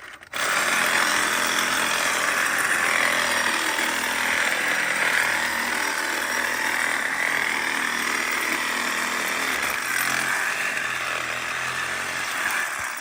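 Cordless DeWalt reciprocating saw with a Diablo pruning blade cutting through wood. It starts about a third of a second in, runs steadily for about twelve seconds and stops just before the end.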